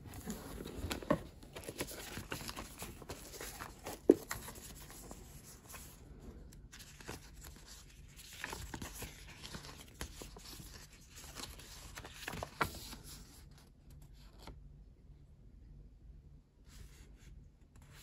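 Paper and cardboard being handled: a folded printed manual rustling and crinkling as it is taken from the box and unfolded, with a few sharp taps and knocks, the sharpest about four seconds in. The handling quiets to faint rustles near the end.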